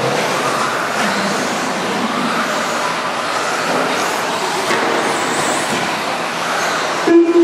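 Several electric RC stadium trucks with modified-class brushless motors racing on a dirt track. The motor and drivetrain whine rises and falls as they accelerate and brake, over the noise of tyres on dirt. A steady low tone comes in near the end.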